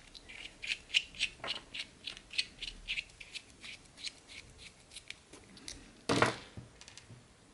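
Hands fiddling with tiny M2 screws and rubber damper grommets, a quick run of small clicks and rubbing as the grommets are pushed onto the screws. A louder short handling knock comes about six seconds in.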